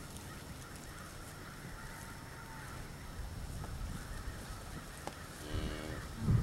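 Steady low outdoor rumble on a cattle ranch, with a faint short call about two seconds in and a short animal call near the end.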